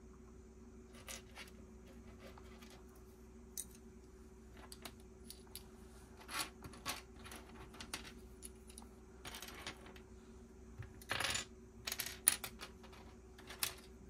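Loose Lego plastic pieces clicking and clattering as they are picked through and snapped together: scattered light clicks, a longer rattle of pieces shifting about eleven seconds in, and the sharpest click just after it.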